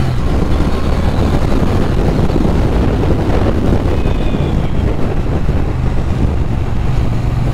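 Wind rushing over the microphone as a Triumph Bonneville T120 is ridden hard, its 1200 cc parallel-twin engine running underneath. The engine's low steady note comes through more clearly near the end.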